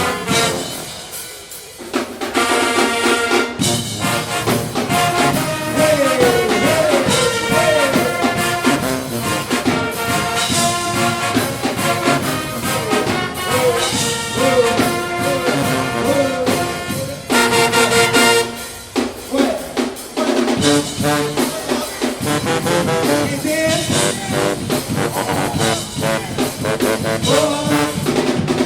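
Marching band playing loud brass, trombones and trumpets, over drums, with sliding brass lines; the band drops back briefly near the start and again about two-thirds through.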